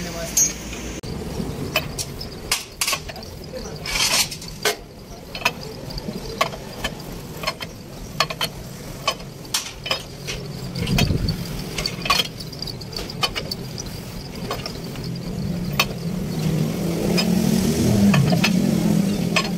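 Irregular sharp metallic clicks and clinks of hand tools, a spanner and a socket bar, working the nuts of a truck's leaf-spring suspension. A low background rumble grows louder near the end.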